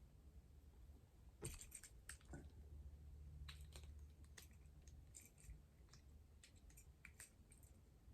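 Faint, scattered clicks and taps of plastic parts on a Transformers Siege Ratchet action figure being handled and repositioned, starting about a second and a half in.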